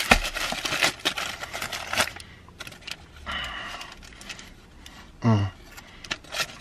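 Paper sandwich wrapper crinkling and rustling as it is handled, densest in the first two seconds or so. A breath follows, then a short low vocal grunt.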